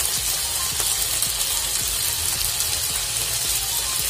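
Pork pieces, onion and garlic sizzling and crackling in hot oil in a wok as a bottled sauce is poured over them; a steady fine crackle throughout.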